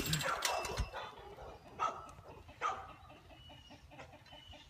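Domestic chickens clucking faintly: two short calls, then a quick even run of soft clucks at about five a second in the second half.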